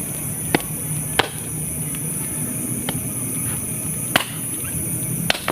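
Four sharp knocks at uneven intervals, like chopping, over a steady background hiss.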